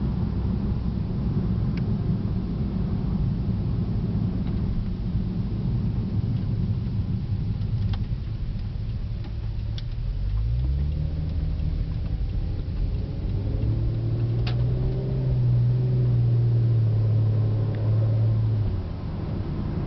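Road and engine noise inside the cabin of a 2008 Porsche 911 Turbo Cabriolet cruising, a steady low rumble. About halfway through the twin-turbo flat-six's note rises and holds a little louder, then drops away shortly before the end.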